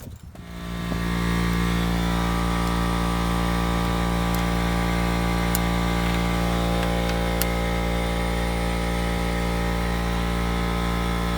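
Electric air compressor starting up, building to a steady hum within about a second and then running evenly.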